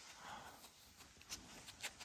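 Faint shuffling of three-week-old American Bully puppies moving about, with two soft clicks in the second half.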